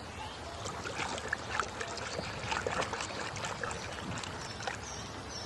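A toy crocodile being washed clean in water: irregular splashing and small knocks and scrapes as it is handled and scrubbed.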